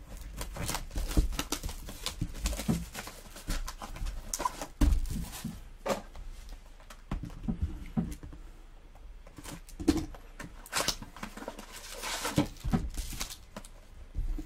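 Plastic shrink-wrap crinkling and tearing as a sealed box of trading cards is unwrapped, followed by the rustle and taps of foil card packs being handled and set down.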